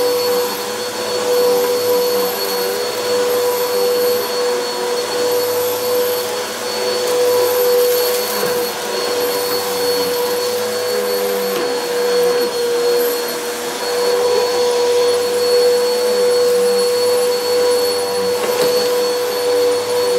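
Bissell Helix Turbo upright vacuum cleaner running while it is pushed over carpet. A steady motor whine sits over a continuous rush of air.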